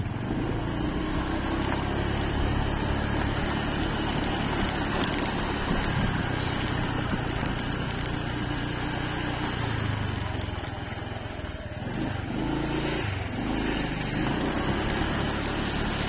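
A vehicle's engine running while travelling along a road, with its note shifting in steps. It eases off briefly about three quarters of the way through, then picks up again.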